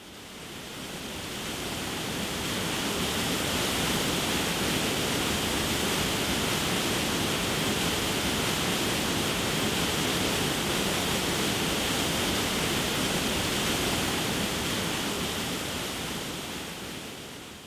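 Rushing whitewater of a river running over rapids and a waterfall: a steady, even rush of water that fades in over the first couple of seconds and fades out near the end.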